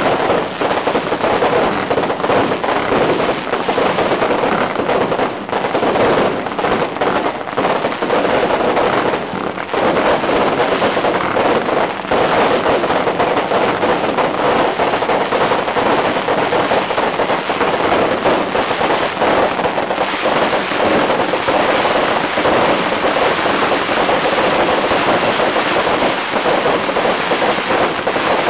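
A long string of firecrackers going off in one dense, unbroken crackle, loud and steady throughout.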